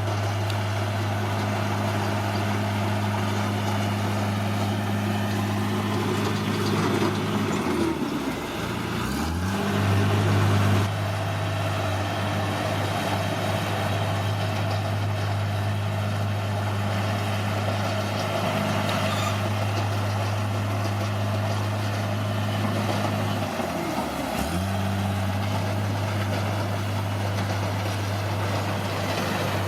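Bulldozer's diesel engine running steadily. Its speed dips sharply and recovers twice, about a third of the way in and again about three-quarters of the way in.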